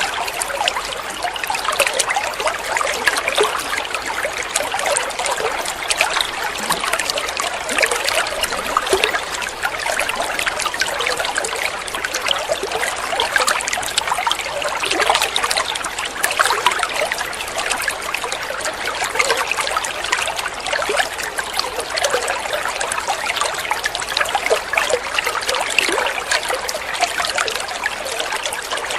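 Running water trickling and splashing steadily, a dense patter of small splashes with little low rumble.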